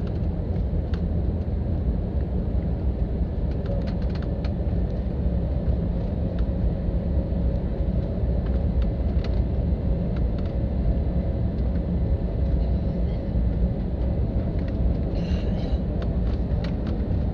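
Steady low rumble of an airliner heard from inside the passenger cabin after landing, with a few faint clicks over it.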